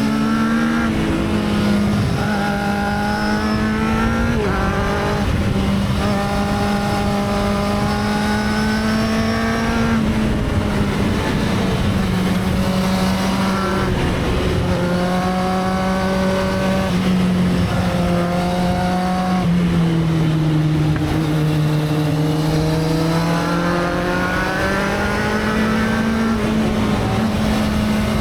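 Motorcycle engine running steadily, its pitch drifting and stepping up and down every few seconds as the engine speed changes.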